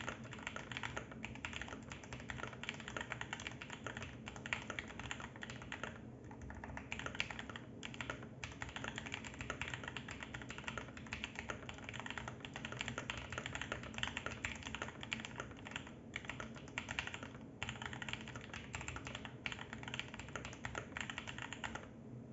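Modded Geeky GK65 mechanical keyboard being typed on in a fast, unbroken stream of keystrokes. It has lubed Huano GranVela Red linear switches on a steel plate, with PE foam, silicone fill and tape-modded PCB damping.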